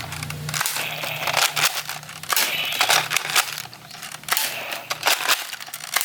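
Plastic crinkling and crackling as it is handled, a dense run of irregular small crackles and clicks. A low steady hum lies underneath for the first few seconds.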